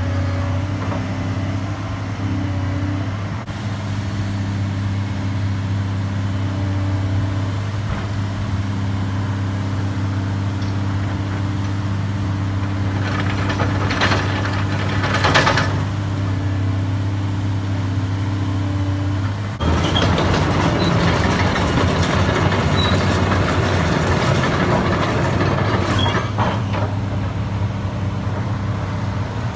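Caterpillar 330D LN excavator's diesel engine running steadily while the boom and stick hydraulics work. About two-thirds of the way in, a louder, rougher rushing noise joins the engine.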